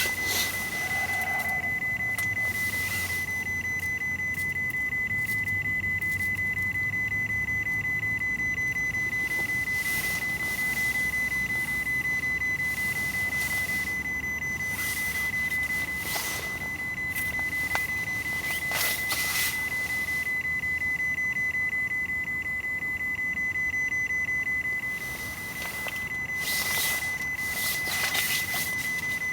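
A steady high-pitched electronic tone that does not waver, with scattered brief rustles and knocks over it.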